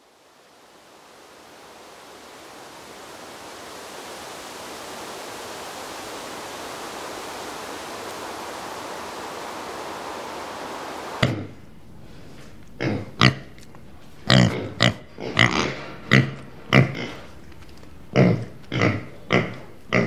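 A steady hissing noise fades in and holds for about eleven seconds, then cuts off suddenly. An animal follows with a series of short, pitched calls, about a dozen at uneven intervals.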